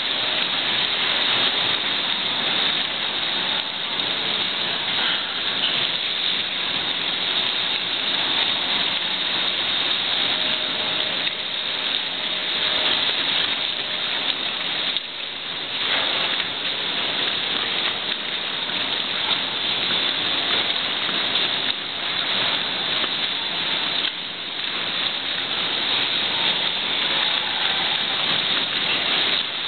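Steady din of waste-handling plant machinery, with rubbish clattering as it tumbles into a hopper.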